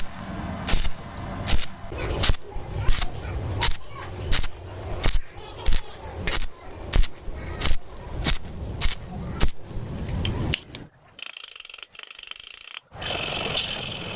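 Electric arc welding on thin square pipe in short bursts, striking and breaking the arc about once or twice a second: the stop-start stitch technique that keeps thin wall from burning through. Near the end it goes quiet for a couple of seconds, then a steadier hiss starts.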